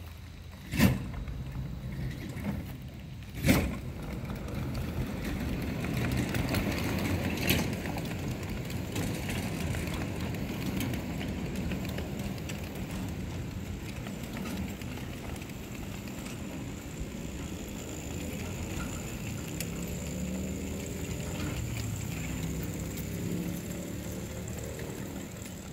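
Two sharp knocks about a second and three and a half seconds in, then the steady rumble of ride-on scale freight cars rolling along the track.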